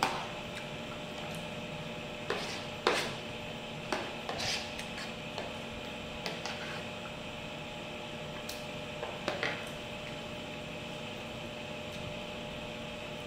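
Scattered soft clicks and taps of a spoon on a ceramic plate and of hands pulling apart fried fish, over a steady background hum.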